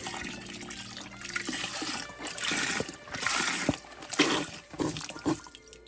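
Chicken broth pouring from a carton into a pot of rice and vegetables, splashing steadily and tailing off near the end.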